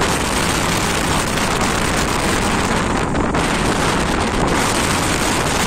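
Gale-force storm wind buffeting the microphone in a steady, loud rush, with a rough sea churning and breaking against the shore beneath it.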